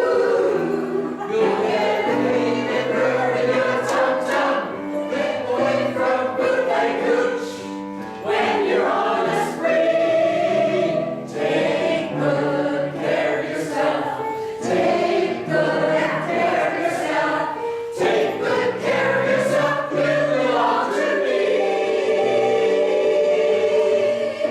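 A choir singing a song from a medley, the voices moving together from note to note with short breaks between phrases.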